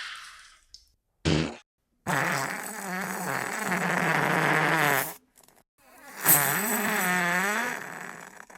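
Diarrhea fart sound effects: a short low burst about a second in, then two long, buzzing, wavering farts, the first about three seconds long and the second about two, with a pause between them.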